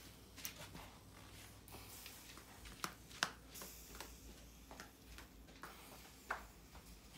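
Cockles cooking in their shells on a charcoal grill: a faint sizzle with four sharp pops or crackles, the loudest about three seconds in.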